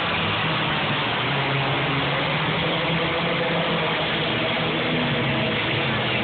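Several compact demolition-derby cars' engines running hard together at once, a steady, loud mix of engine noise with no single crash standing out.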